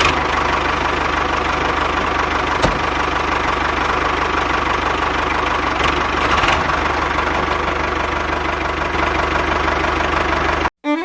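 Mini tractor's engine running steadily, with one sharp click about two and a half seconds in; it cuts off abruptly near the end.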